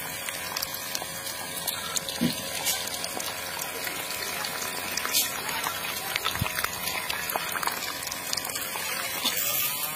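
Water gushing steadily from the outlet of a miniature toy water pump and splashing into shallow water, with a faint steady motor hum underneath.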